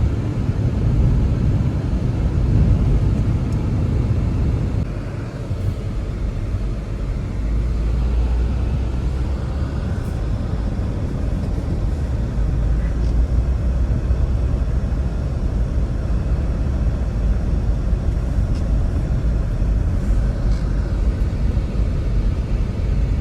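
Strong blizzard wind: a steady low rumble of wind gusting against the microphone, with a few faint clicks.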